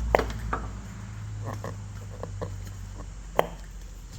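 Scattered sharp clicks and knocks of handled wiring connectors being unplugged from the back of a Humvee headlight, the loudest about three and a half seconds in, over a steady low hum.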